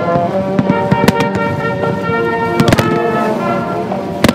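Fireworks shells bursting in the sky, several sharp bangs, the loudest near the end, over music with held notes.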